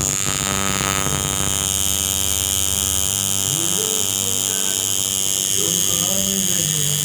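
Coil tattoo machine buzzing steadily while its needle inks lettering into the skin of a forearm.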